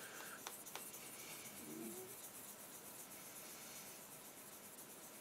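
Sanding stick rubbing back and forth along a plastic model-kit gun barrel, a faint scratchy rasp, with a few light clicks in the first second.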